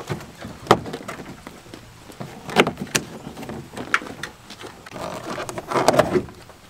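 Scattered sharp plastic clicks and knocks from a pickup's interior door trim being handled and pried at with a small screwdriver, with a busier spell of handling noise near the end.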